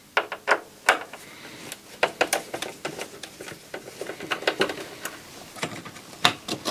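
Irregular small clicks, taps and light knocks of plastic and metal parts of a stereo receiver being handled and pushed into place, with a few sharper clicks standing out.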